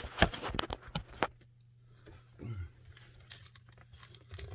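Handling noise of a phone being set down and adjusted on a white wire closet shelf: a run of sharp clicks and light metallic rattles, busiest in the first second and a half, then fainter scattered knocks.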